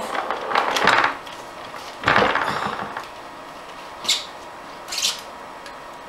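Ratchet wrench working the 10 mm hex cap on an AX5 transmission case: metal-on-metal clanks and scraping, with a louder grating burst about two seconds in, then two sharp clicks.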